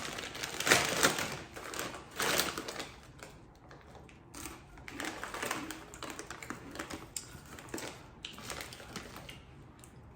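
Close-up crunching and chewing of blue Takis rolled tortilla chips, irregular crisp cracks. The crunches are loud for the first couple of seconds, then settle into softer, sparser chewing crackles.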